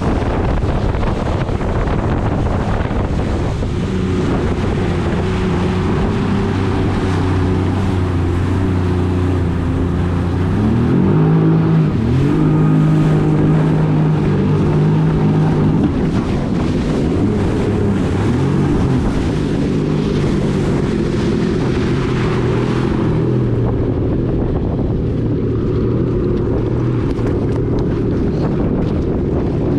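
Yamaha EX Sport WaveRunner's 1049 cc three-cylinder four-stroke TR-1 engine running under way, with wind buffeting the microphone and water rushing past the hull. About ten seconds in the engine revs up and holds a higher pitch for a few seconds, then eases back and rises and falls once more before settling.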